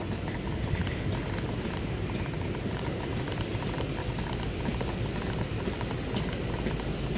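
Footsteps walking at a steady pace on the steel catwalk of an oil tanker's main deck, over a steady rushing background.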